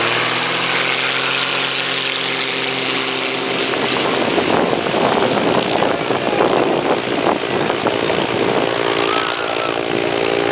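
Light propeller aircraft's piston engine running steadily at low speed, with rushing propeller and wind noise that swamps the engine note for a few seconds in the middle.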